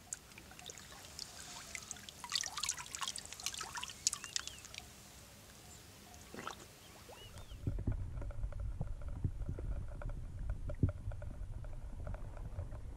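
Shallow lake water splashing and trickling around a large common carp as it is held in the water and released. About eight seconds in the sound turns dull and low, with knocks, as heard through an underwater camera.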